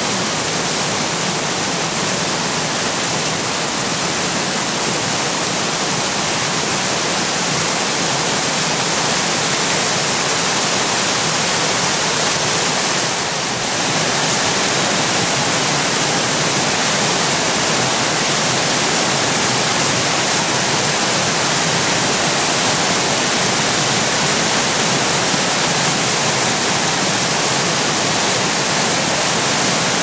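Water rushing steadily over a river weir's sloping concrete spillway, a loud, even wash of white water.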